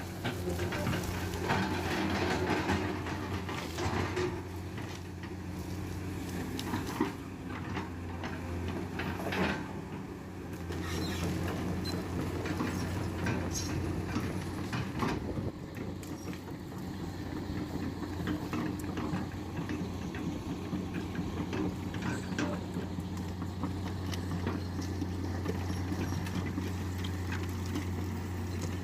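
Heavy diesel machinery running steadily with a low, even drone, with scattered knocks and scraping clatter over the first ten seconds or so.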